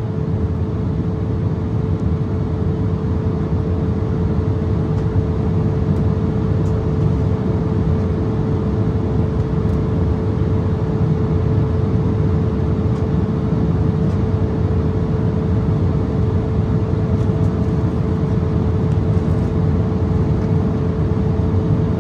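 Steady cabin noise of an Embraer ERJ-170 airliner in flight: the rush of air and the drone of its GE CF34-8E turbofans. A constant mid-pitched hum runs through it.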